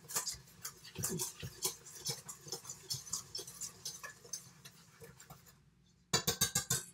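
Whisk stirring dry flour mix in a mixing bowl, a steady run of light ticks against the bowl. They fade out about five seconds in, and after a short pause come back as faster, louder taps near the end.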